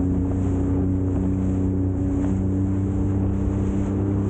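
Sea-Doo jet ski's engine running steadily under way, its pitch stepping up slightly about a second in, over the rush of water spray and wind on the microphone.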